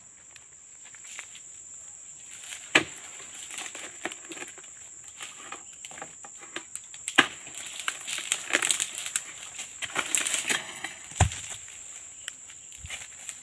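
Chisel blade on a long harvesting pole jabbed into the base of an oil palm's fronds and fruit bunch: sharp chopping knocks a few seconds apart, then a long crackling rustle of dry palm fronds, and a dull heavy thud near the end.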